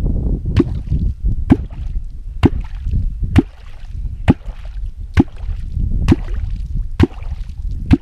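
Metal Perm catfish kwok plunged into the river surface in a steady rhythm, a sharp watery pop about once a second, nine in all: the kwok call that draws catfish up to the bait. A low rumble of wind and water runs underneath.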